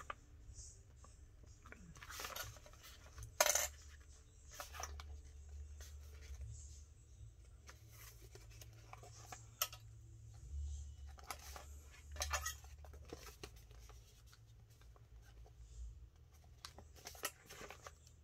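Scattered light clicks and taps of paper and small craft pieces being handled and shifted on a work surface, the sharpest about three and a half seconds in, over a low steady hum.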